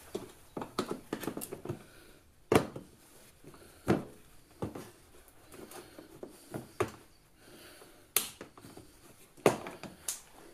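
Scattered plastic clicks and rattles as a plastic trim tool prises at a push-fit grommet clip and works a plastic wheel-arch panel loose. About five sharper knocks stand out among them.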